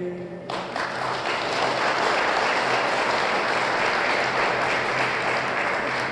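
A singer's last held note of the national anthem ends about half a second in, and a standing audience breaks into applause.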